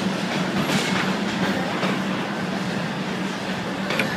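Darjeeling Himalayan Railway narrow-gauge toy train running, a steady low hum under rolling noise, with a few wheel clicks over rail joints and a sharper knock near the end.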